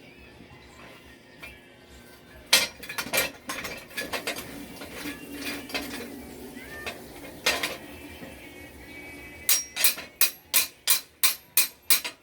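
Sharp metallic clinks and taps, metal striking metal. They are scattered at first, then come as a run of about eight even strikes near the end, roughly three a second.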